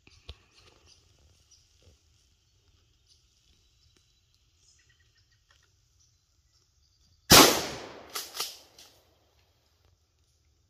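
A single loud gunshot from a hunting gun about seven seconds in, with a short echoing tail, followed within about a second by two quieter sharp cracks.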